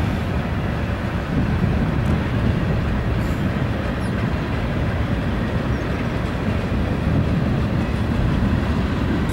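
Freight train's boxcars and tank car rolling past, a steady rumble of steel wheels on the rails.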